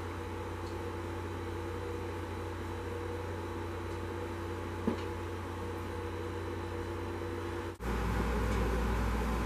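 Steady machine hum with a couple of steady tones in it and a single small click about five seconds in. Near the end it cuts abruptly to a louder, deeper hum.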